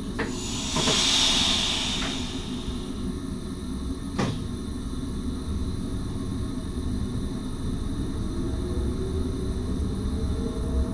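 Inside the cab of an NS SGMm Sprinter electric multiple unit pulling away: a hiss of air about a second in and a sharp click about four seconds in, over a steady low rumble. Over the last few seconds a whine rises slowly in pitch as the train gathers speed.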